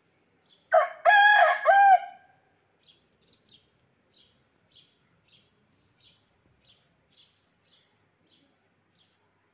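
Rooster crowing once, a short cock-a-doodle-doo about a second in. Afterwards a small bird chirps over and over, two or three short high chirps a second.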